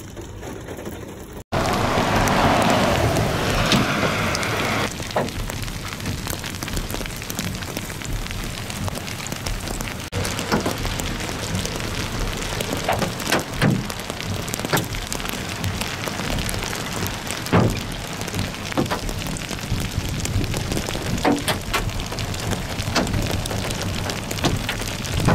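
Heavy rain with large hail, 1 to 2 inch stones, falling in a steady dense patter, with frequent sharp cracks of single stones striking. It sets in suddenly about a second and a half in, after a quieter start.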